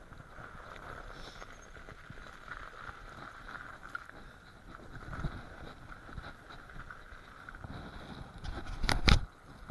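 Electric bike riding over packed snow and ice, its tyres and drivetrain rumbling with a steady mid-pitched whine. There is a jolt about five seconds in, and a sharp double clack near the end that is the loudest sound, as the bike hits a bump.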